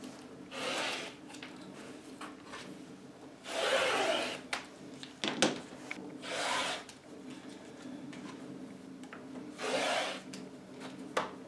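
Rotary cutter's blade rolling through fabric along a quilting ruler on a cutting mat, in four cutting strokes of about half a second to a second each, with a few sharp clicks between them.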